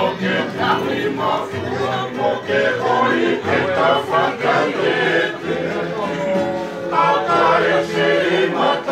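A group of men singing together in Tongan, in harmony, to strummed ukulele and acoustic guitar.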